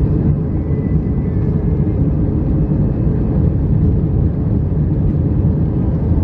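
Airbus A320 cabin noise heard from a window seat over the wing: a loud, steady low rumble of the jet engines and the wheels as the aircraft rolls along the runway.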